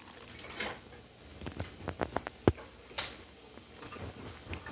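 Close-up chewing of a bite of crispy, air-fried pizza crust: a run of small crunches and clicks, the sharpest about two and a half seconds in.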